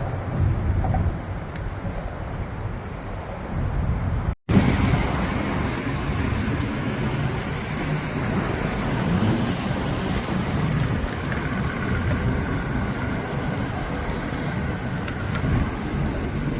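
Steady rumble of road traffic mixed with wind buffeting the microphone, with no clear single event. The sound cuts out for a split second about four seconds in.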